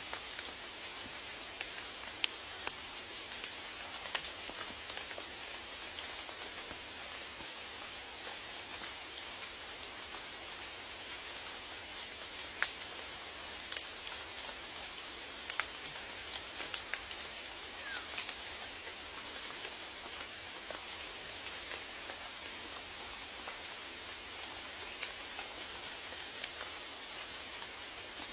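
Steady rain falling, an even hiss with many distinct drops tapping and a few louder single drips scattered through.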